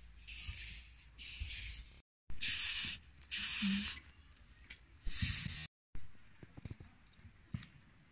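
Several short bursts of rustling hiss in the first two thirds, then a run of light, sharp clicks near the end as scissors snip.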